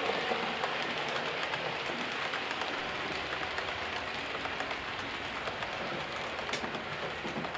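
HO-scale model train running along the track: a steady rolling rattle of the wheels on the rails, dotted with quick light clicks.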